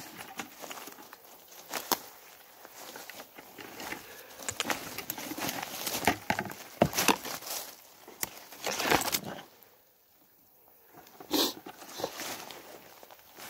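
Footsteps crunching through dry leaf litter, twigs and grass, with irregular crackles and rustles. They stop for about a second near the end, then one short louder rustle.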